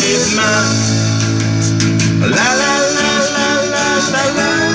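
Live band playing a rock song: guitar with a male lead vocal over a PA. A long held note bends away about two seconds in.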